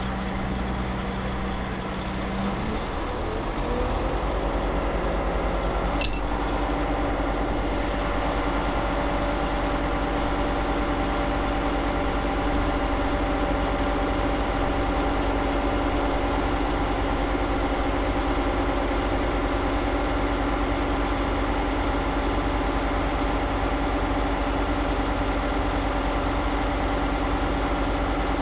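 Hud-Son Badger firewood processor's engine running. A few seconds in it speeds up, there is one sharp clink about six seconds in, and then it runs steadily at the higher speed.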